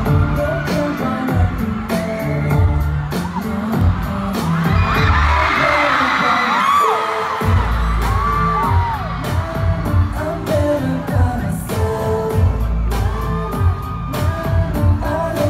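Live K-pop concert music heard from within the arena audience: a pop track with singing over a heavy beat. Around the middle the beat drops out for a few seconds while fans scream, then the bass comes back in about seven and a half seconds in.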